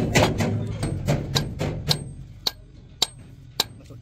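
Sharp metal-on-metal strikes about every half second, each with a short ring, as a steel rod is hammered against the gland end of a long-ram hydraulic jack cylinder during disassembly.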